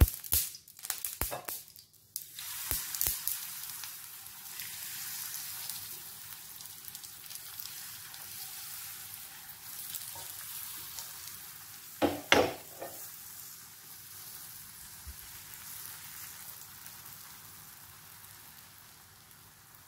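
Pancake batter sizzling in a hot oiled non-stick pan; the hiss starts about two seconds in as the batter goes in and slowly dies away as it sets. A few sharp clicks at the start and a knock or two about twelve seconds in.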